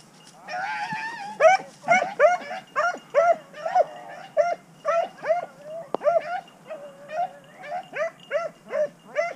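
Rabbit hound baying in the brush: a long wavering cry, then a rapid string of short yelping barks at about three a second.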